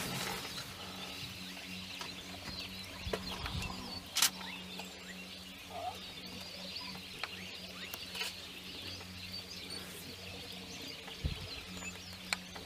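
Wild birds chirping and calling in the background over a steady low hum, with a single sharp click about four seconds in.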